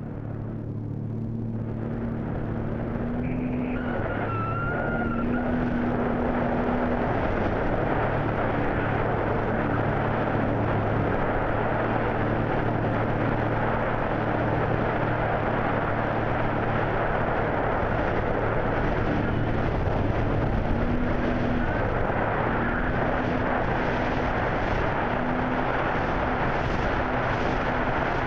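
Motorboat engine running steadily under the rush of water and wind, growing louder over the first several seconds and then holding even.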